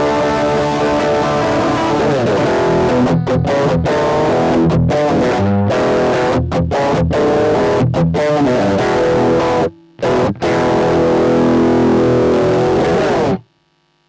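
Electric guitar played through a Boss Dyna Drive DN-2 overdrive pedal, with a distorted tone: held, ringing notes, then a fast run of short choppy notes with quick stops. There is a brief break about ten seconds in, then more held notes that cut off suddenly near the end.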